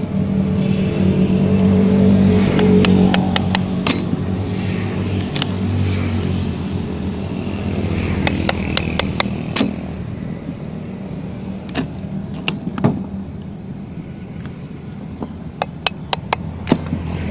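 A screwdriver and blade working at a coconut shell against a wooden board: scattered sharp clicks, knocks and scrapes, with a cluster of clicks near the end. Under them runs a steady engine hum, loudest in the first few seconds.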